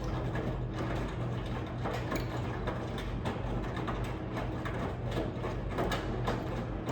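Miele W1 Professional washing machine running with its drum turning: a steady motor hum under irregular clicks and knocks.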